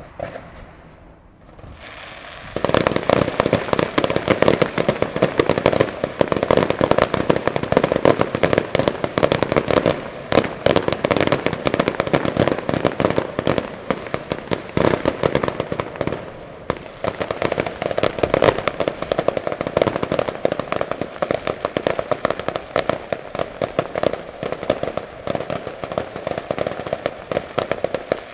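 Fireworks display: aerial shells bursting in a dense, continuous barrage of bangs and crackling, which starts suddenly about two and a half seconds in after a quieter opening.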